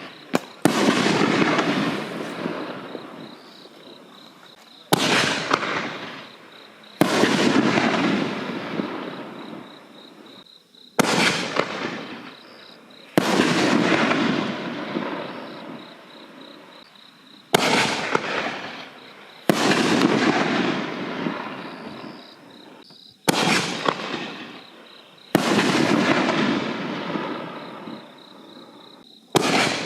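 5-inch canister shells fired one after another, about one every six seconds: each starts with a sharp report as it launches from the mortar tube, then about two seconds later the shell bursts with a second sharp bang and a long rush of noise that fades over several seconds.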